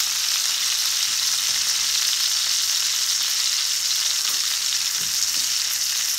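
Ribeye steak sizzling steadily in a cast-iron pan as a knob of butter melts and foams around it, an even hiss with no breaks.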